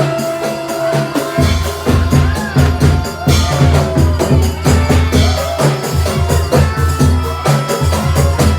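Javanese jaranan dance music played live: drums and hand percussion over a heavy, repeating low beat, with a melodic line sliding in pitch above it.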